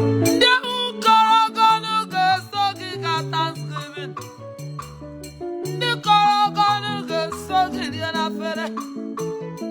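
Upbeat worship music: a bass line moving note to note under a wavering melody line, with light percussion, between the sung lines of the song.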